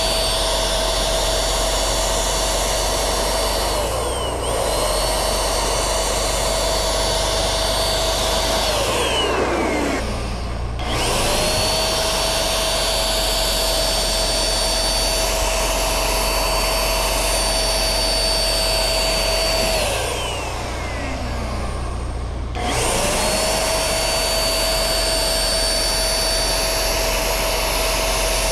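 Handheld electric paint spray gun (Pekiya-kun) running with a steady whine while spraying paint. It stops briefly about four seconds in and again around nine and twenty seconds in, its pitch falling as the motor winds down each time before it spins back up.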